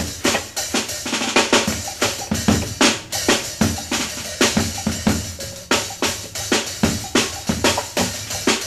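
Trap drum kit played busily in a live jazz recording: rapid, irregular hits on snare, bass drum and cymbals, several a second, with low held tones underneath. It is heard from a cassette dub of the master reel.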